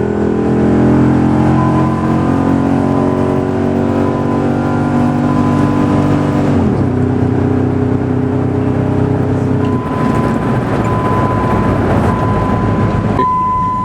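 A 5.7 Hemi V8 in a Dodge Ram pickup running under throttle in first gear through Flowtech shorty headers, true dual exhausts and Dynomax Ultra Flo mufflers with no cats. It holds a steady note, drops in pitch about halfway through as the throttle comes off, then gives way to road and wind noise. A thin steady high tone sounds alongside.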